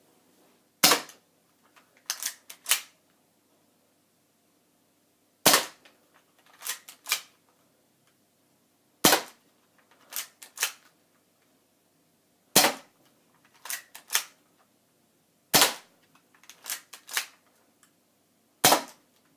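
6 mm BB gun firing six single shots, a sharp crack every three to four and a half seconds. About a second after each crack come two lighter clicks in quick succession.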